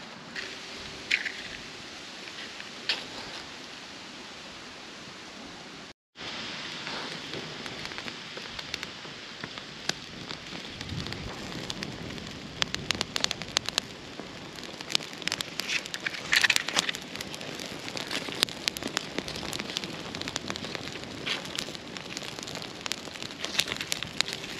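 Cooking over an open wood fire: a steady sizzling hiss with scattered crackles and pops. The sound breaks off briefly about six seconds in, and the crackles come thicker afterwards.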